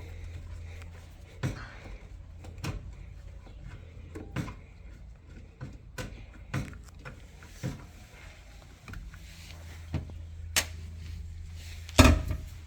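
A series of sharp knocks and clatters from handling washing-machine parts, about one a second, the loudest near the end with a short ring, over a low steady hum.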